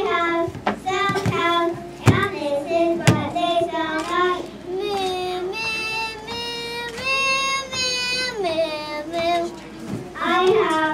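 A young child singing into a microphone, with a few long held notes in the middle. A couple of sharp knocks sound in the first few seconds.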